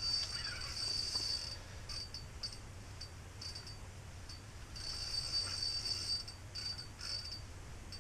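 Ice-fishing reel drag buzzing as a hooked lake trout pulls line, in stop-start runs, the longest about a second and a half each.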